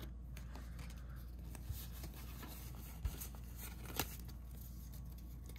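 Pokémon trading cards handled and leafed through by hand: faint rustling with three soft clicks, over a low steady hum.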